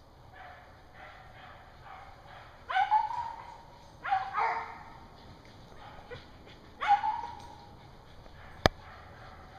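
Beagles baying on a snowshoe hare's track, giving tongue as they run it. Three loud, drawn-out bays come about 3, 4 and 7 seconds in, with fainter ones between. A single sharp click sounds near the end.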